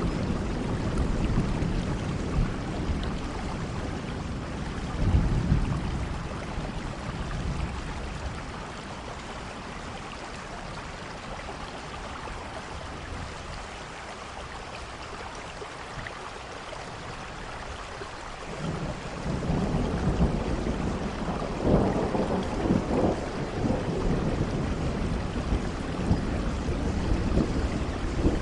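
Steady rain with rolling thunder. Heavy low rumbles come at the start and again about five seconds in, die down to the rain alone for a long stretch, then build again about two-thirds through.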